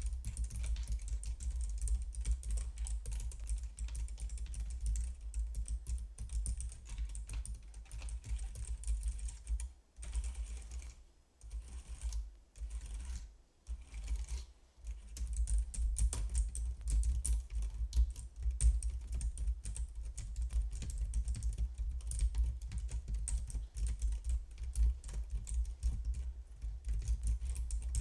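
Computer keyboard typing up close: a fast, continuous run of key clicks with a few brief pauses about halfway through.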